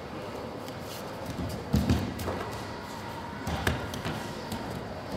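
Dull thuds of aikido partners being thrown and taking breakfalls onto the mat, a few separate impacts with the heaviest about two seconds in and another near the end, in a large echoing hall.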